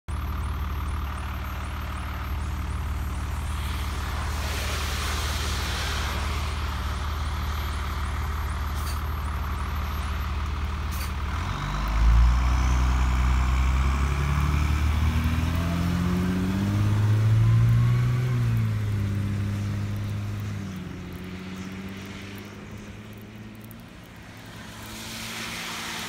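School bus engine idling steadily, then revving up as the bus pulls away, its pitch climbing in steps through the gears before it fades into the distance.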